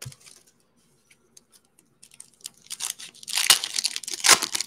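Foil wrapper of a Panini Mosaic basketball card pack being torn open and crinkled: a few light crackles, then dense crackling that is loudest near the end.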